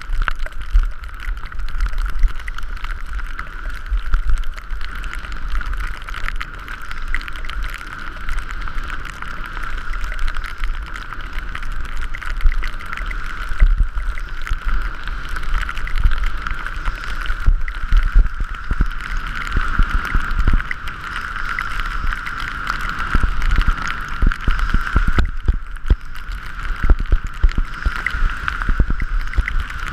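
Wind rushing over the microphone of a skier's mounted camera during a fast descent, with heavy low buffeting and a steady whistling tone. Frequent low thumps, more of them in the second half, come from the skis running over the snow.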